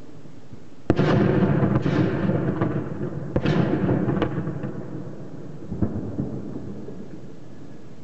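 Heavy explosions from shelling: a sharp blast about a second in, then several more blasts over the next five seconds, all within a loud rolling rumble that fades away near the end.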